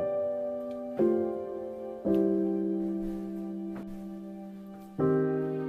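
Slow piano background music: chords struck one after another, each left to ring and fade, with one long held chord in the middle.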